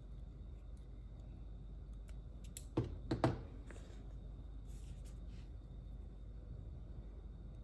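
Small craft scissors and paper at a desk: a brief cluster of sharp clicks and light taps about three seconds in as a small paper tag is finished off and handled, then faint paper rustles, over a low steady room hum.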